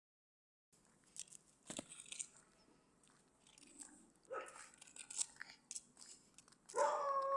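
Footsteps crunching on a gritty street, with scattered short clicks. Near the end a street dog starts a long, steady howl.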